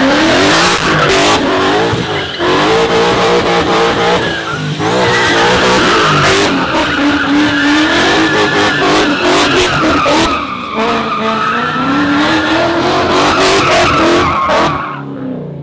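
ProCharger-supercharged Ford Mustang GT (S550) V8 with full headers and straight-through exhaust doing donuts. The engine revs up and down at high revs while the rear tyres squeal in the spin. The sound eases off briefly a few times and fades near the end.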